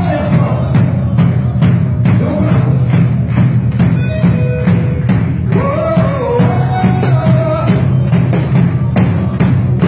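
Worship band music: a drum kit keeping a steady beat over a strong sustained bass, with a melodic line rising and falling briefly around the middle.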